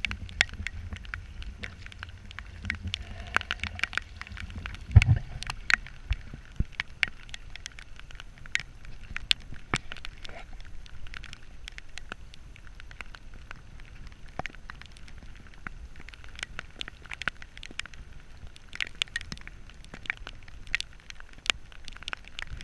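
Irregular sharp ticks and taps of water on the kayak and camera, several a second, over a low rumble that fades after about five seconds. A single heavy knock comes about five seconds in, as the paddle is set down on the hull.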